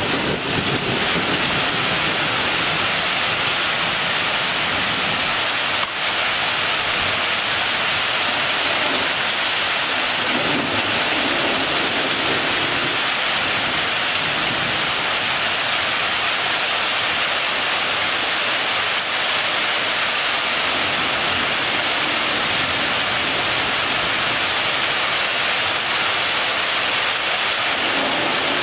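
Rain falling steadily in a thunderstorm, a constant even hiss.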